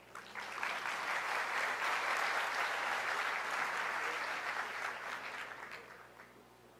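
Audience applauding. The applause swells over the first second, holds, and fades away about six seconds in.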